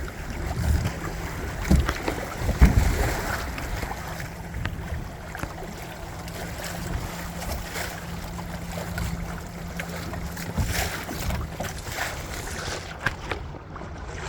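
Wind buffeting the microphone, and water washing against the hull of a small sailboat under way. There are a few heavy low thumps about two seconds in.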